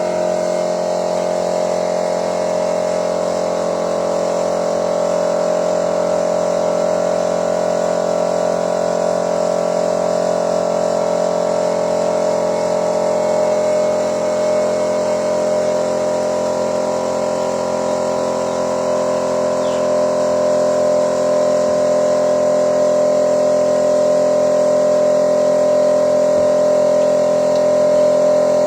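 Car engine running at a steady speed, a continuous hum of several steady tones that sags slightly in pitch partway through and then picks up again.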